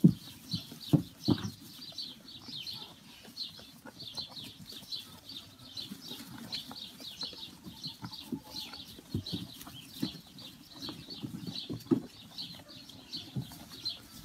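Lambs and a piglet feeding on alfalfa hay in a trough: hay rustling and munching with a few sharp knocks against the trough, the loudest right at the start. Small birds chirp quickly and continuously over it.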